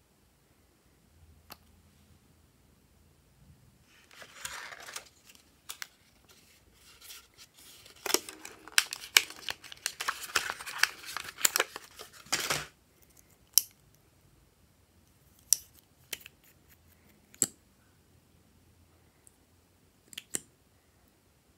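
Hard plastic packaging handled close up: a dense run of sharp clicks and crackles as a liquid lipstick tube is worked out of its plastic tray, then a few single clicks as the tube is handled and uncapped.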